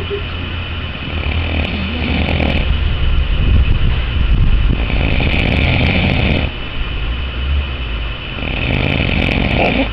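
A man snoring loudly: three long, rough snores, one every three to four seconds, over a steady low rumble.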